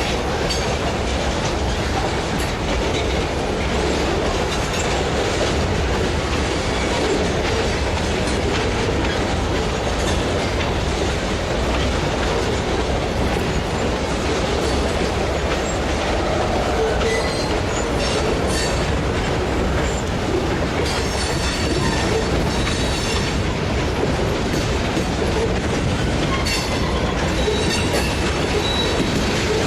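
A train running on rails, a steady rumbling noise throughout, with short high-pitched squeaks in the second half.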